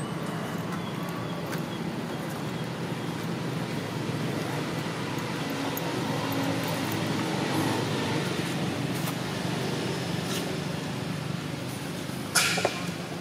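Steady outdoor background noise, a hiss over a low hum, with a short sharp sound near the end.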